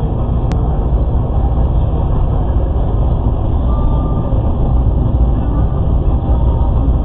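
Steady road and engine noise heard inside a car cruising at highway speed, mostly a low rumble, with one short click about half a second in.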